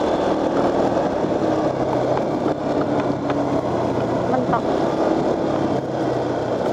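Motorcycle engine running steadily at cruising speed, with constant wind and road noise.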